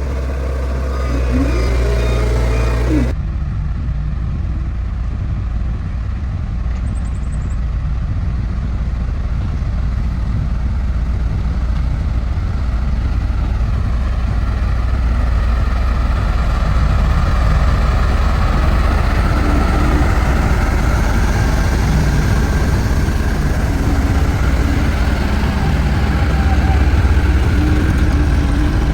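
Heavy engine of road construction machinery running steadily, with an abrupt change in the sound about three seconds in.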